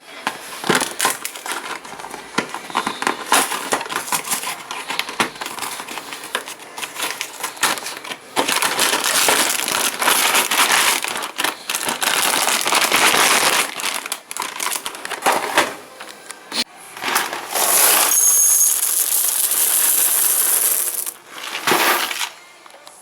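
Dry breakfast cereal poured from its packet into a bowl: a dense, crackly rattle that stops and starts several times.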